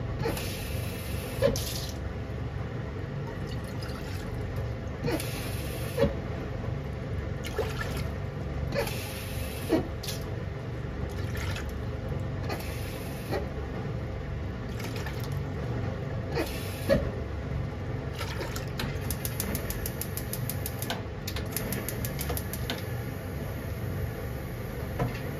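Water poured into a nonstick pan on a gas stove, over a steady low rumble, with a few sharp clicks along the way.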